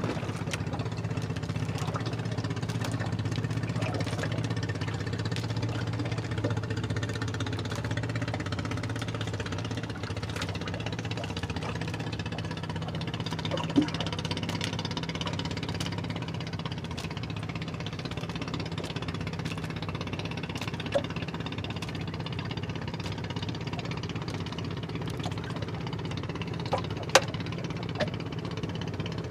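Engine of a small motorized outrigger fishing boat running steadily at trolling speed, a dense, even chugging. A few sharp clicks stand out briefly about halfway through and near the end.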